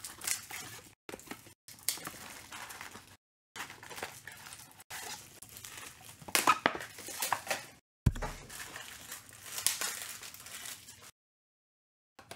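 Cardboard trading-card blaster box being torn open and its foil-wrapped card packs handled: irregular tearing and crinkling, with a dull thump about eight seconds in.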